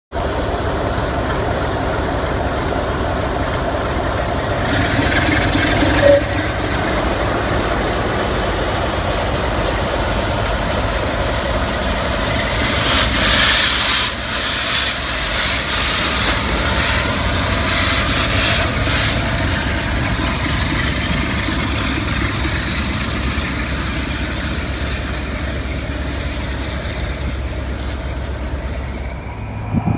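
A Class 47 diesel locomotive's twelve-cylinder Sulzer engine runs with a steady, heavy drone as the train rolls slowly past, with a few clanks of wheels and couplings. The sound thins out near the end as the train draws away.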